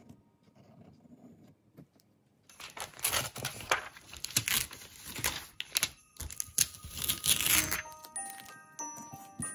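Sheet of tracing paper being lifted and flipped over: a loud, irregular crinkling rustle lasting several seconds. A light chiming tune of background music comes in near the end.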